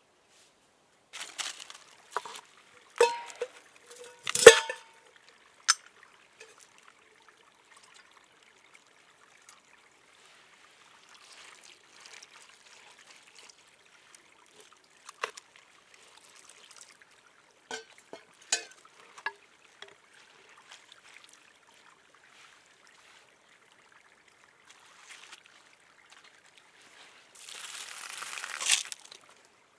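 A metal camp kettle and its lid clink sharply against the stream rocks a few times with a short ring, then small clicks and a faint trickle of a shallow stream. Near the end, water poured from the kettle splashes onto the rocks for about a second and a half.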